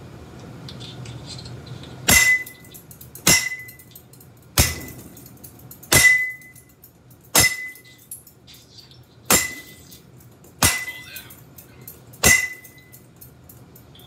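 A baseball bat strikes a caged metal-and-glass ceiling light fixture eight times, about one hit every second and a half. Each hit is a sharp clank with a brief metallic ring.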